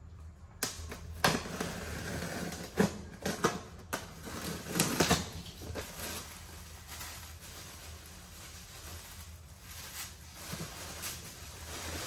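Box cutter slicing through the tape around the lid of a styrofoam box, a run of sharp scraping strokes over the first five seconds or so, then plastic bags rustling and crinkling as food is pulled out of the box.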